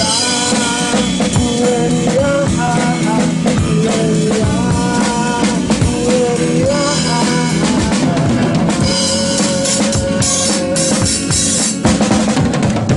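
Hip-hop instrumental: a drum-kit beat with kick and rimshot under a melodic line, with cymbals brighter in the second half.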